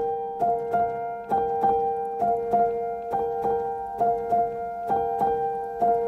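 Background keyboard music: a quick run of evenly repeated notes, about three a second, over a held tone.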